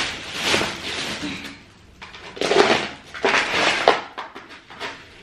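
A black plastic bag rustling and cat litter being scooped out of a litter box, in several short bursts of rustling and scraping with a couple of sharp clicks about four seconds in.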